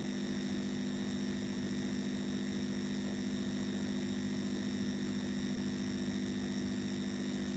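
Steady background hum with several high, even tones over a faint hiss: the room tone of the recording, with no other sound.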